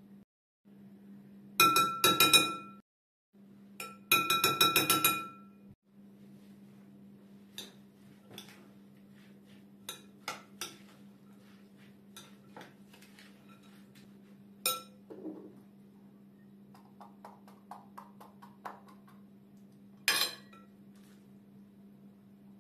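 Metal spoon clinking and scraping against a glass mixing bowl while stirring a filling: two bursts of rapid ringing clinks near the start, then scattered lighter taps and one more short burst near the end. A steady low hum runs underneath.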